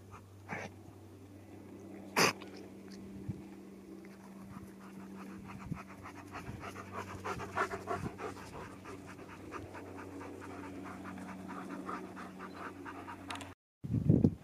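A dog panting quickly and rhythmically, its breaths growing clearer through the second half. A single sharp click comes about two seconds in, and a burst of wind noise hits the microphone near the end.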